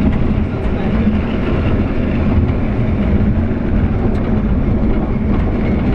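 Lynton and Lynmouth Cliff Railway's water-balanced funicular car running down the steep track, its wheels rumbling steadily on the rails.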